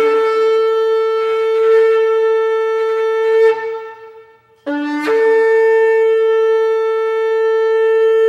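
Shofar (ram's horn) blown in two long blasts. Each opens on a brief lower note and then jumps up to a held higher note. The first blast fades out about three and a half seconds in; the second starts just before five seconds and is still held at the end.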